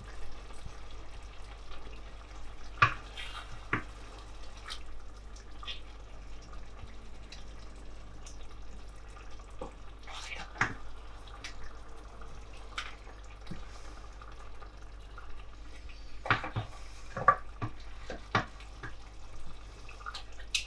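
Hake pieces simmering in tomato sauce in a stainless steel pot, with bubbling and scattered knocks and scrapes of a wooden spoon against the pot as the fish is turned over.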